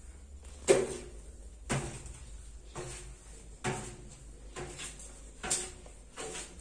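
Footsteps climbing a ship's stairway with metal-edged treads, a thud about once a second, the first one the loudest, over a low steady hum.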